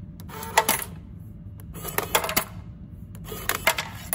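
Coins clattering out of a vending machine's coin mechanism in three short bursts about a second and a half apart, each a rattle of several metallic clicks, over a low steady hum.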